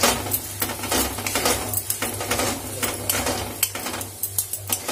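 A steel spatula scraping and clinking against a metal kadai, in quick irregular strokes, as crumbled paneer bhurji is stirred and tossed.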